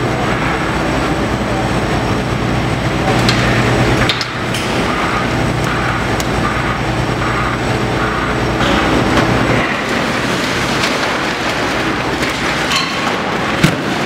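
Demolition excavator's diesel engine running while its arm tears into a block-built office, with knocks, crashes and clattering of falling masonry and debris. The engine's steady hum drops away about two-thirds of the way through, and a sharp crash comes near the end.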